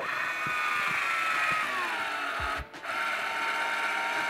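Electric corkscrew's small motor whirring steadily as it works on a wine bottle's cork, its pitch sinking a little about two seconds in. It stops for a moment just under three seconds in, then runs on.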